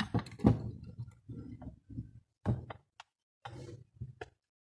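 Hard plastic vending-machine parts knocking and clattering as they are handled and fitted together. The knocks come thick at first, then as a few separate knocks and clicks.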